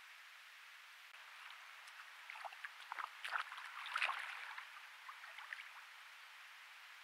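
Water splashing and gurgling in a shallow stream, a few seconds of irregular splashes and sharp clicks that are loudest near the middle, over a steady microphone hiss.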